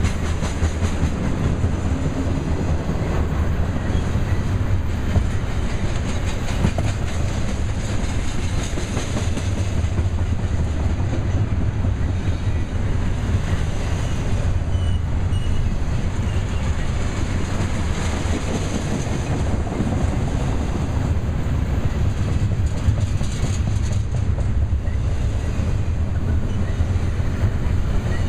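Freight train of double-stack container cars rolling past, a steady rumble with rhythmic clickety-clack of steel wheels over the rail joints.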